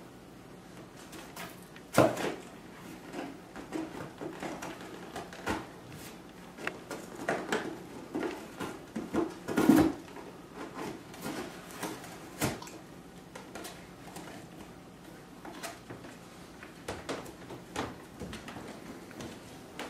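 Bernese Mountain Dog tearing and chewing a cardboard box: irregular rips, crackles and knocks, loudest about two seconds in and again near the middle.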